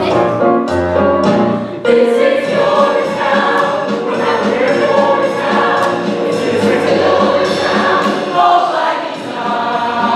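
A stage cast singing a show tune together in chorus, several voices at once, over instrumental accompaniment with low sustained notes.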